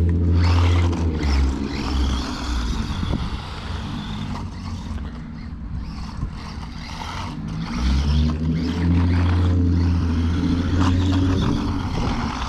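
DEERC 9310 1:18-scale RC monster truck driving, its small electric motor and drivetrain running with tyres scuffing on the ground; it runs hardest near the start and again from about eight seconds in.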